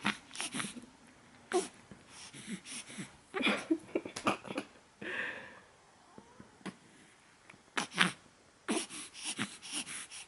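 Newborn baby stirring awake from sleep, making short grunts and noisy breaths in irregular bursts as he stretches and squirms.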